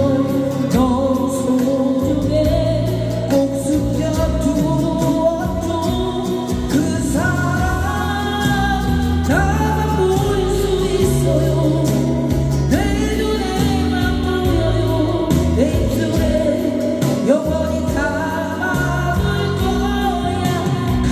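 A voice singing a slow ballad over backing music, with held notes that slide between pitches above a steady bass line.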